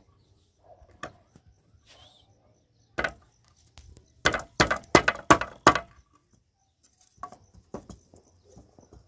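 Hammer striking old wooden slats: a single knock, another a couple of seconds later, then a quick run of about seven loud blows, followed by a few lighter knocks near the end.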